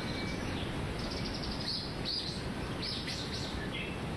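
Bonin white-eyes at the nest giving short, high chirps, several in a row, over a steady low background noise.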